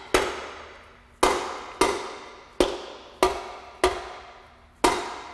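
Seven sharp mallet blows on the body of a Saginaw power steering pump, tapping it back into its reservoir housing during reassembly. Each knock rings briefly and fades before the next, about one blow every half second to a second.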